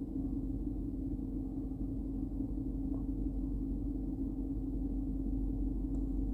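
A steady low hum with a few level tones, with a faint click about three seconds in and another near the end.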